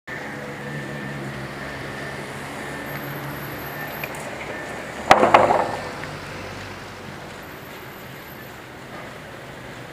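A long wooden plank dropped onto stone paving about five seconds in: a sharp knock and a brief loud clatter, over a steady low hum.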